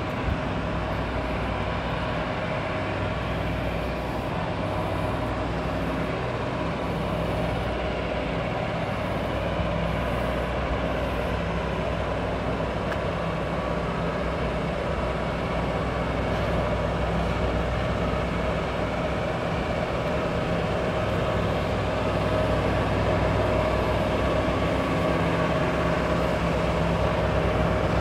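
Steady machine hum from a parked Boeing 737 and the ground equipment around it, with several held tones over a low drone. It grows a little louder over the second half.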